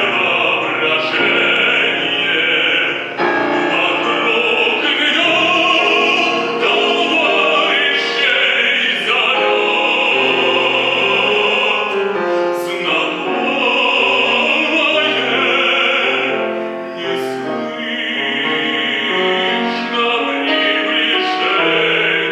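A classically trained solo voice sings a Russian art song in operatic style, held notes over a piano accompaniment.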